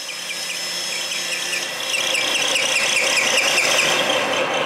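End mill on a vertical milling machine cutting metal as a rotary table is hand-fed round, to mill a 2.5-inch circle: a steady rasping cut with high scraping chirps repeating several times a second, getting louder about two seconds in.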